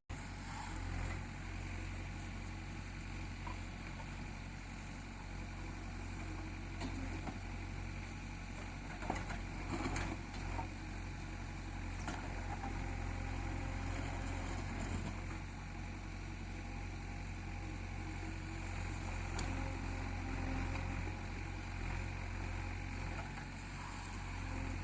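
JCB diesel engine running steadily with a low, even hum, with a few short knocks about nine to ten seconds in.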